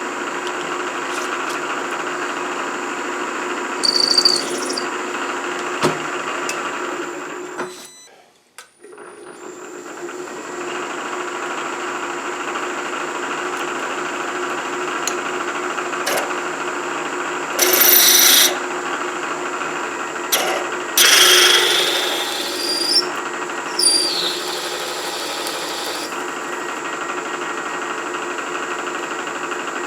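Milling machine spindle running with a 3/8-inch four-flute high-speed-steel end mill plunging into a metal plate, drill-fashion, with short squeals as it cuts. About eight seconds in the spindle winds down almost to silence, then comes back up to speed a second or two later.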